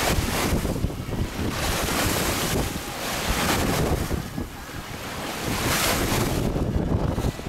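Water rushing and splashing along the hull of a heeled sailing yacht under way, surging louder and softer every second or two, with wind buffeting the microphone.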